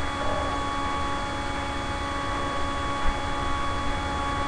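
A steady background hum with several constant tones over a low rumble.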